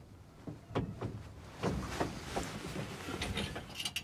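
Irregular knocks, clunks and rustling of a person shifting about inside an old truck's cab and settling back into the driver's seat.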